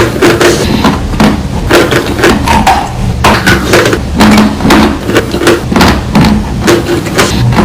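Loud, dry crunching of chalk being bitten and chewed close to the microphone: a quick, uneven run of crisp crunches, about three a second.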